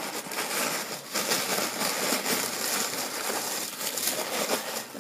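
Cardboard box flaps being opened and white tissue paper rustling and crinkling as hands pull it out of the box, a continuous dense crackle.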